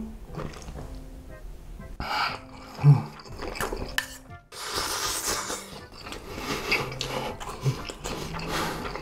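Light background music, then from about two seconds in, wet slurping and chewing of saucy instant noodles over it.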